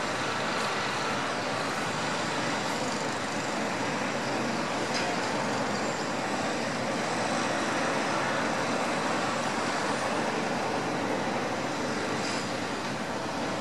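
Steady roar of city road traffic: an even wash of noise with no distinct events.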